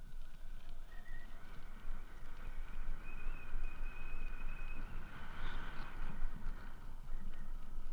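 Riding an electric trike along an asphalt path: wind buffeting the microphone over tyre noise, with faint thin whines above.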